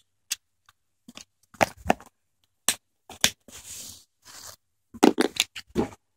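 Clear plastic tackle box and jigs being handled: a string of sharp plastic clicks and knocks with short scraping rustles, bunched into a quick run near the end.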